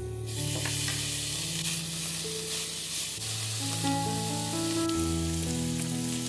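Diced bacon sizzling as it drops into a hot frying pan, the fat hissing steadily from about a third of a second in; a wooden spatula stirs it near the end.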